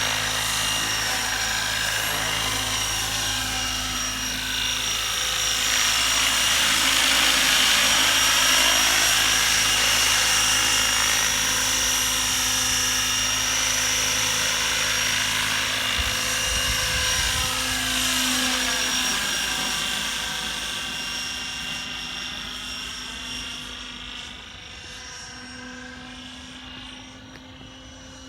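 Electric 12-cell radio-controlled helicopter flying: a steady high-pitched whine of motor and rotor blades that sweeps as it moves around, loudest about a third of the way in and fading toward the end.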